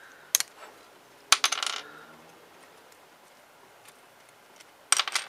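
Small hard plastic parts of a Beyblade kit clicking and snapping as they are twisted off their plastic runner. There is one click about a third of a second in, a louder snap with a brief rattle just over a second in, and another quick cluster of clicks near the end.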